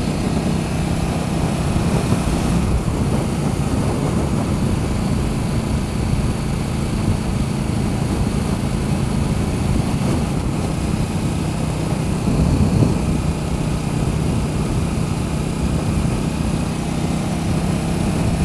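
Motorcycle engine running at a steady cruise, a constant low drone mixed with rushing road and wind noise.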